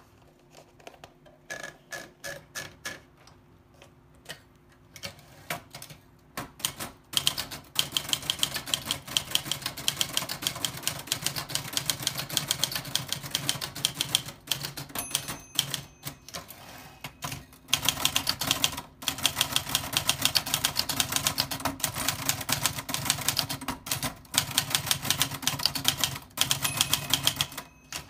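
Old typewriter being typed on. A few scattered key strikes come first, then from about seven seconds in a fast, steady run of key clacks broken by brief pauses.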